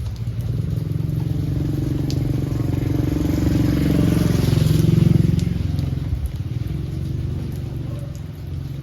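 A motor vehicle's engine passing by, growing louder to a peak about five seconds in and then fading away, over the steady hiss of falling rain.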